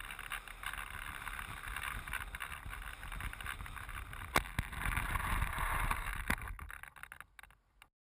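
Airflow rushing over a wing-mounted action camera as a Skywalker foam RC plane comes in to land on pavement. A sharp knock about four seconds in and another about two seconds later, with a louder scraping rush between them as the plane slides along the ground, then the sound fades out.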